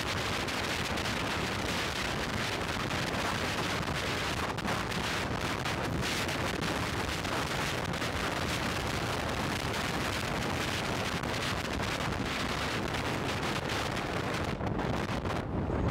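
Wind rushing over the microphone of an action camera on a motorcycle moving at highway speed: a steady noise with no clear engine note standing out.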